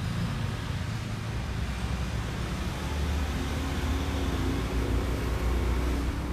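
Steady road-traffic noise with a low engine rumble.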